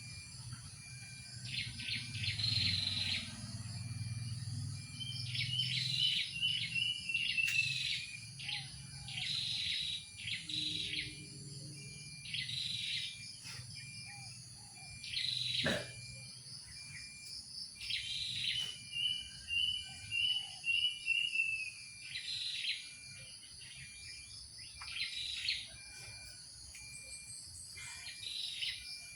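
Wild birds chirping in short bursts every second or two, twice breaking into a quick run of falling notes, over a steady high insect drone.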